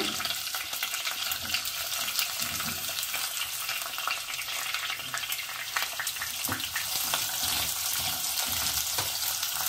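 Sliced red onions sizzling as they fry in hot ghee in a non-stick saucepan. A wooden spatula stirs them, knocking and scraping against the pan now and then.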